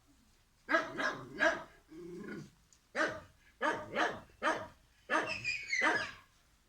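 A series of loud animal calls, about eight in quick succession, each short except a longer final call.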